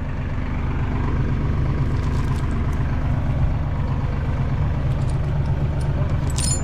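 Farm tractor engine idling steadily, with a short sharp clink near the end.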